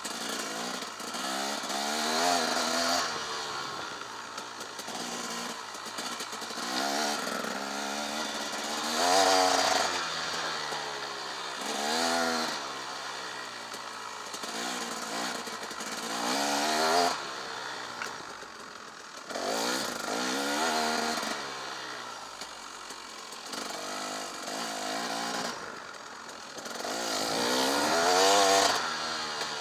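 Husaberg TE 300's two-stroke single-cylinder engine being ridden hard on a dirt trail, revving up and down repeatedly as the throttle is opened and closed, its pitch climbing and dropping with each burst.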